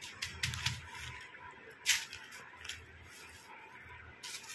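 Hands handling strands of beads on bubble wrap and plastic packets, making irregular rustles and clicks, with one sharper click near two seconds in.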